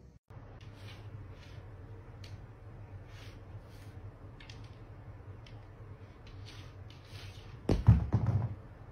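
A cat paws a smartphone across a wooden tabletop: scattered light taps and scrapes over a low steady room hum. A cluster of loud thuds comes near the end.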